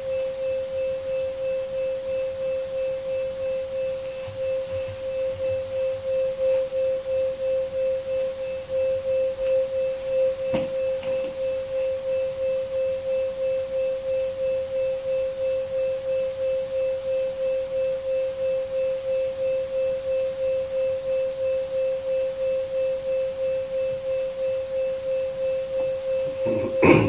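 iHome Bluetooth speaker playing the 528 Hz and 525 Hz sine tones: one steady pure hum whose loudness pulses evenly a few times a second. A short knock comes about ten seconds in and a thump near the end.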